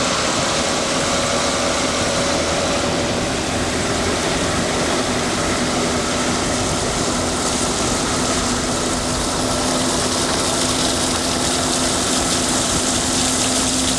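Boat motor running steadily at an even pitch, with a constant hiss of water and air over it.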